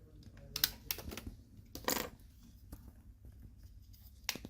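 Sharp plastic clicks and snaps, about half a dozen, as a Samsung Galaxy A50's mid frame is pried off and its clips let go; the loudest, slightly longer snap comes about two seconds in.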